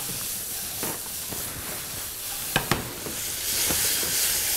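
Strips of root vegetables sizzling in a hot frying pan as they are stirred, with two sharp clicks about two and a half seconds in. The sizzle grows louder near the end.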